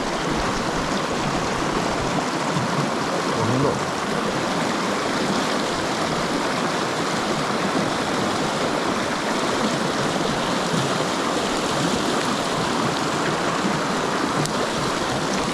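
Mountain stream water rushing, a steady even sound of running water.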